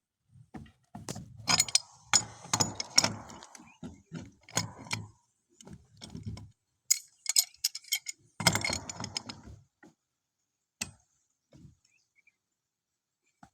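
Irregular clinking, knocking and scraping of hard objects being handled, in two busy spells with a few single knocks near the end.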